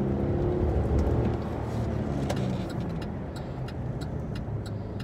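A car engine running and road noise heard from inside the cabin while driving slowly. From a little over two seconds in there is a run of light clicks, about two or three a second.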